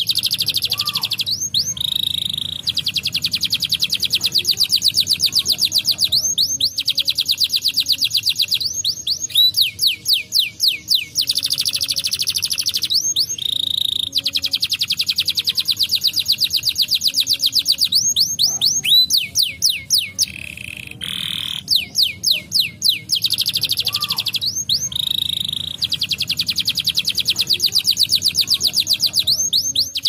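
Brown canary singing: long fast trills of rapidly repeated notes, each stretch lasting several seconds, broken by short groups of rising sweeping notes and brief pauses.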